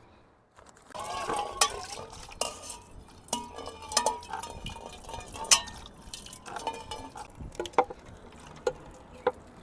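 Kitchen utensils, dishes and pots clinking and clattering irregularly as food is prepared for cooking, starting about a second in.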